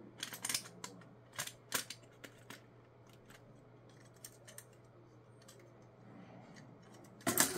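Hard plastic parts of a Cosmic Fury Megazord toy clicking and snapping as they are handled and fitted during its transformation. A cluster of sharp clicks comes in the first two seconds, then scattered fainter ones, and a louder knock near the end.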